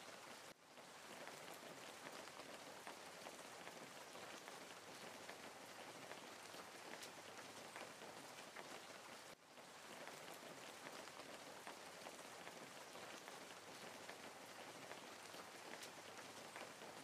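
Faint, steady rain: an even patter of drops with fine ticks, briefly dropping out about half a second in and again about nine seconds in.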